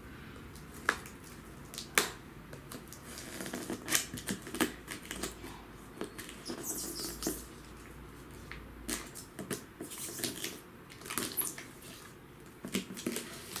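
Folding pocketknife cutting and scraping along the glued top seam of a cardboard box, with irregular clicks, taps and scratches on the cardboard and one longer scrape about seven seconds in.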